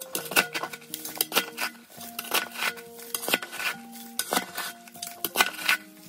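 Steel shovel blade scraping and striking gravel, dirt and the floor of a concrete drainage ditch: repeated sharp scrapes and clinks at an uneven pace, about two a second. A simple background melody plays underneath.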